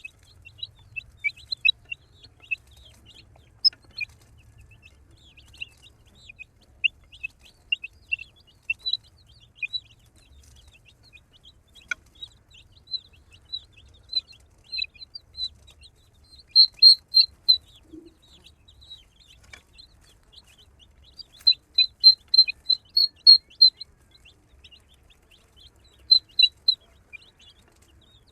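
Baby chicks peeping: many short, high peeps throughout, with bursts of rapid louder peeping in the second half.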